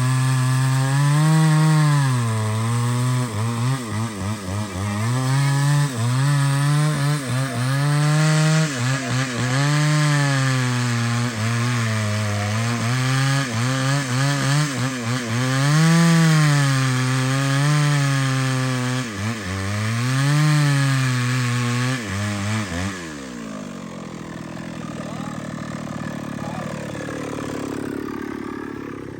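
Two-stroke chainsaw cutting through the hard wood of a large earleaf acacia trunk, its engine speed dipping and recovering again and again as the chain bites. About 23 seconds in, the engine drops back to a lower, quieter idle, then revs up again at the very end.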